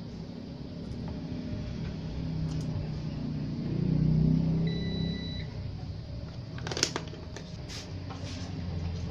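A low rumble that swells to its loudest about four seconds in, followed by one short high beep from a digital multimeter as its probes test the TV power-supply board. A few sharp handling clicks follow near the end.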